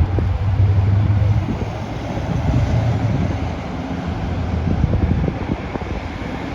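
Vehicle rumble with wind buffeting the microphone: a loud low hum that eases after about a second and a half, with irregular gusty thumps throughout.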